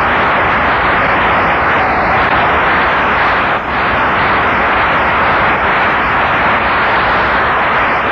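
A large audience applauding, a dense, steady wash of clapping that holds throughout with a brief dip about three and a half seconds in.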